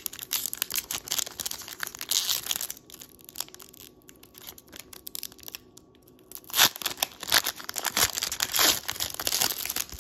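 Foil trading-card pack being torn open, the wrapper crinkling and crackling in bursts, loudest in the last few seconds.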